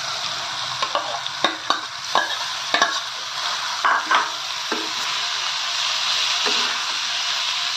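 Boiled potato pieces stirred with a metal spatula into tomato-chilli masala frying in a kadhai: a steady sizzle, with scrapes and knocks of the spatula against the pan through the first five seconds.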